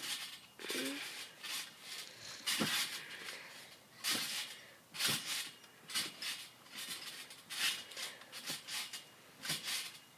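A trampoline's mat and springs under repeated bounces: a noisy swish with each landing, roughly once a second and unevenly spaced.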